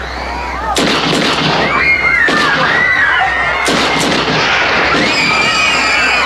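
Revolver fired about five times in uneven succession, over a crowd screaming and shouting in panic.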